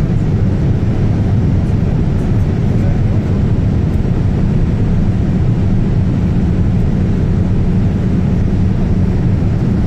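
Steady, deep rumble of an airliner cabin in flight: jet engine and airflow noise heard from a window seat over the wing.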